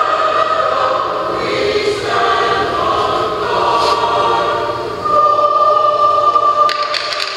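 A national anthem sung in a hockey arena, ending on a long held note about five seconds in. Cheering and clapping break out near the end.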